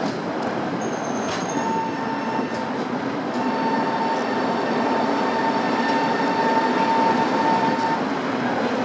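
A Prague tram running along its rails, heard from inside the car: a continuous rumble of wheels on track. A steady high whine joins about two seconds in and fades out near the end.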